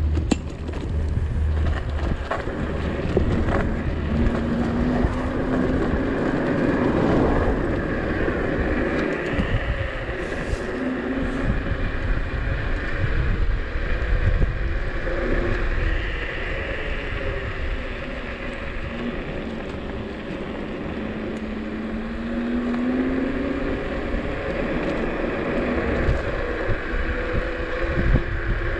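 Inokim Oxo dual-motor electric scooter climbing a steep hill under load, its hub motors giving a whine that slowly rises and falls in pitch. Underneath runs a steady low rumble of wind and road noise.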